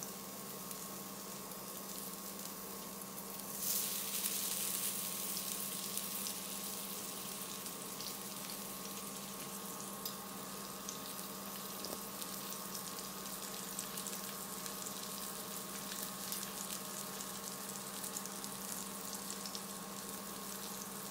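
Skewered chicken gilafi kebabs sizzling and crackling as they sear, nearly cooked through. The sizzle gets louder about four seconds in.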